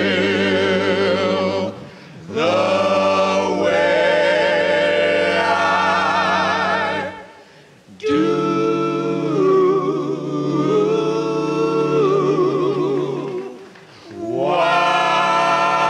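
Five-voice a cappella doo-wop group (lead, two tenors, baritone, bass) singing long held harmony chords with vibrato, in three phrases separated by brief pauses. The bass line drops out about halfway through.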